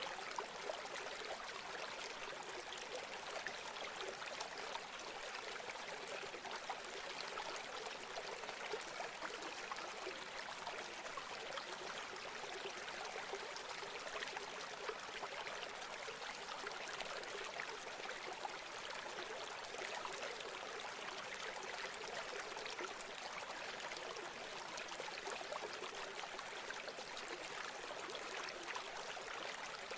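River water flowing and burbling over rocks, a steady rushing hiss with fine splashing detail and little low rumble.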